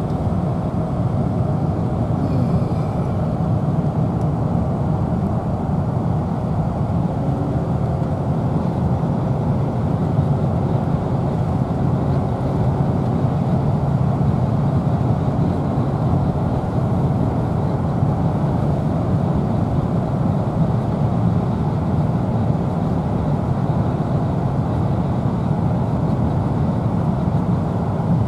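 Steady road noise from a car's tyres and engine, heard inside the cabin of the moving car.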